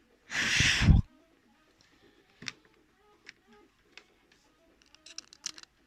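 A short breathy blast of air, like a puff blown at close range, just under a second in. It is followed by faint scattered clicks and ticks, with a small cluster near the end, from a toothpick working in an iPhone 4's charging port.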